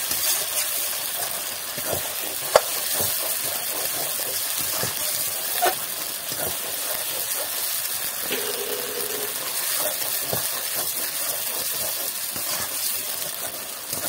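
Masala paste of onion, garlic, ginger and chilli sizzling in hot oil in a metal kadai, stirred and scraped with a metal spatula while it is fried down. Two sharp knocks of the spatula against the pan stand out, about two and a half and five and a half seconds in.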